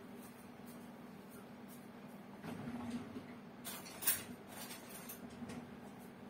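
Faint scraping and tapping of a small utensil spreading custard into tart shells: a few soft strokes, the sharpest scrape a little after four seconds in.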